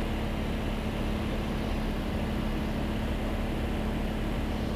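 Steady drone of a Cessna 182's piston engine and propeller in level flight, with a constant low hum running through it.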